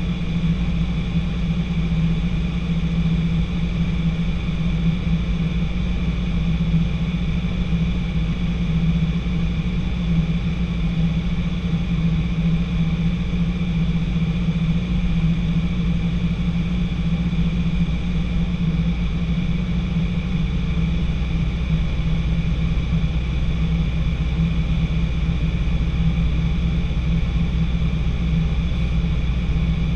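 Light training aircraft's engine and propeller droning steadily in level flight, heard inside the cockpit.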